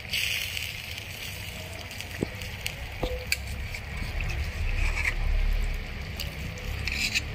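Soya chunk gravy simmering in a tiny clay pot as ground masala paste is stirred in: a steady sizzling, bubbling hiss with small squishes and spoon clicks.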